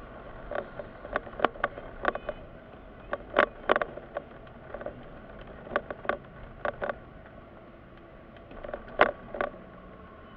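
Steady low hum inside a Mitsubishi SUV's cabin in slow traffic, broken by a series of irregular sharp clicks and knocks, one of the loudest near the end.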